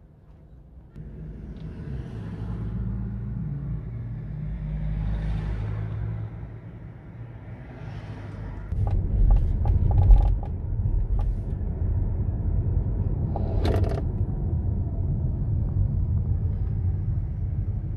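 Car driving through city streets, heard from inside the car: a steady low engine and road rumble that starts about a second in and grows louder about halfway through. A brief sharp noise comes near the end.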